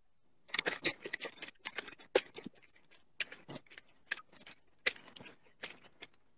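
Scattered light clicks and rattles at irregular intervals, starting about half a second in and stopping shortly before the end.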